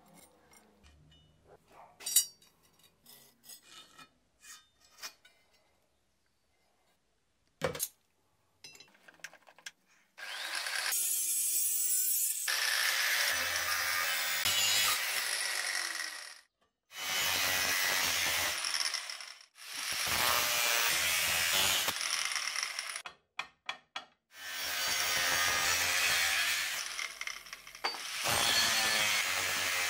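A few light clicks and knocks, then a power tool working metal in five runs of a few seconds each with short pauses between them.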